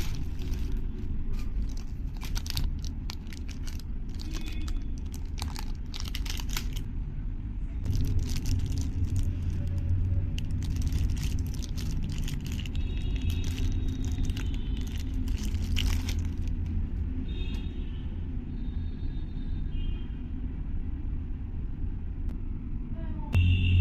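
Packaging crinkling and tearing in quick rustling bursts as a blind box is opened, mostly in the first two-thirds. A steady low rumble runs underneath.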